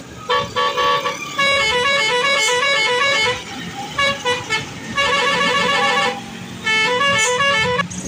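A truck's multi-tone "telolet" musical air horn playing a quick melody of stepped notes in about five runs, with short pauses between them, over the noise of passing road traffic.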